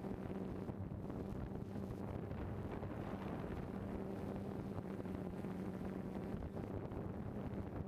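Multirotor drone's propellers humming steadily as it hovers, with wind buffeting the microphone.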